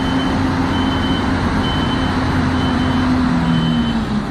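Truck reversing alarm beeping steadily, about one high beep a second, over the steady drone of a running truck engine.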